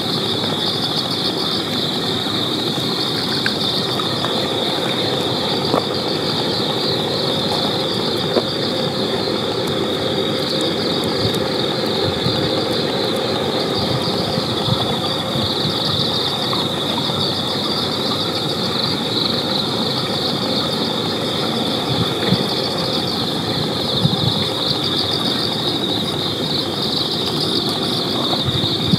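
Crickets chirring in a steady high, rapidly pulsing trill that never stops, over a steady low rumble of background noise.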